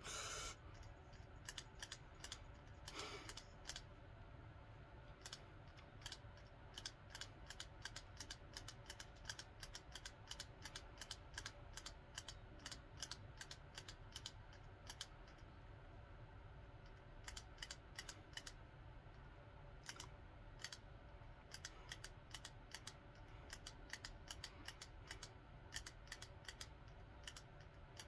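Faint, quick, irregular clicking of a spring-loaded hand grip strengthener being squeezed over and over, with a short lull about halfway.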